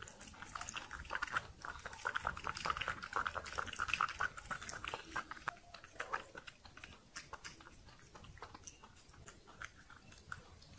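Kitten licking the inside of a glass: a rapid run of wet tongue clicks and smacks, densest in the first half and thinning out toward the end.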